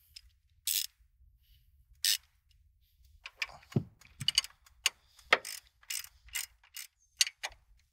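Socket ratchet with a 21 mm socket clicking as the upper control arm bolts are tightened: a couple of short clicks at first, then quick runs of clicking from about three seconds in.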